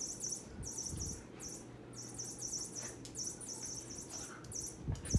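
High-pitched insect chirping, such as crickets, repeating at about three chirps a second with short pauses. A couple of soft low thumps come about a second in and near the end.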